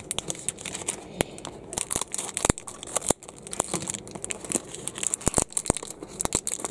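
Thin pink plastic wrapper crinkling and tearing as it is peeled off a LOL Surprise Under Wraps capsule, with irregular sharp crackles.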